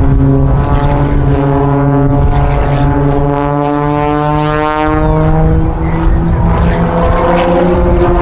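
A piston-engine aerobatic propeller plane's engine and propeller drone loudly and steadily, the pitch shifting partway through as it climbs and dives.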